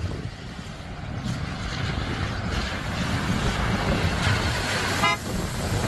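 A car driving through standing floodwater, its tyres hissing and splashing louder as it comes up and passes, over a steady low rumble. A brief high-pitched chirp near the end.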